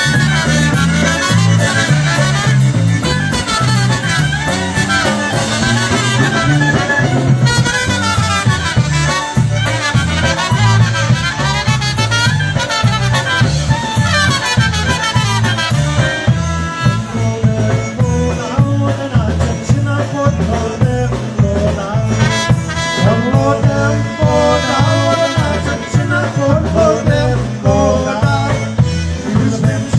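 Live polka band playing a polka, with a steady oom-pah bass beat under a melody line.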